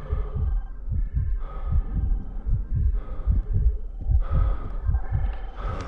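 Rapid low thumping pulses, several a second, under a few short held tones: a cartoon soundtrack effect.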